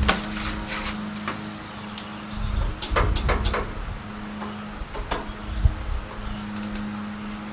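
Scattered scrapes and knocks of packing material and grill parts being handled, in small clusters, over a steady low hum.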